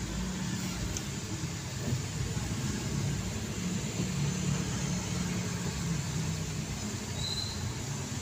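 Steady hum of a car's engine heard from inside the cabin.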